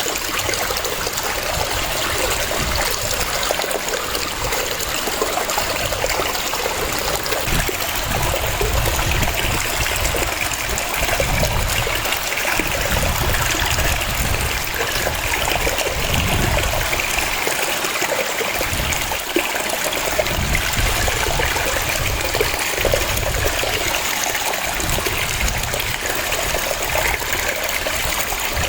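Waterfall: water rushing and splashing in a steady, even wash of sound with no breaks.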